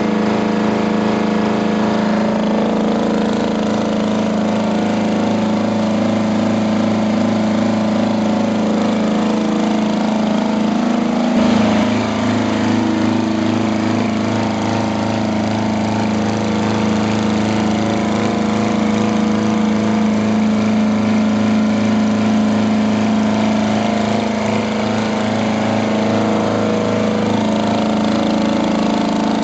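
Detroit Diesel 200 kVA generator set's diesel engine running steadily, its note shifting slightly about a dozen seconds in.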